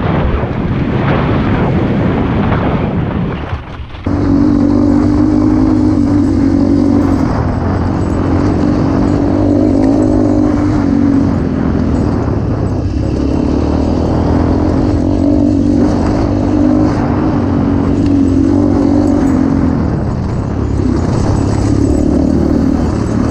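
Single-cylinder motorcycle engine running while being ridden, its note swelling and easing every few seconds. For about the first four seconds a loud rushing noise covers it, then the sound changes abruptly to a clearer, steadier engine note.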